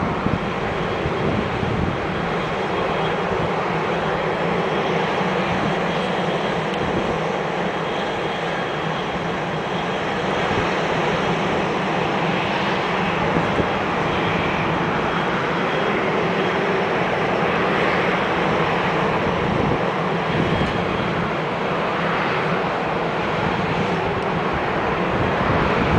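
Boeing 737-800 airliner taxiing at a distance, its CFM56-7B turbofan engines running steadily at low power with a faint high whine.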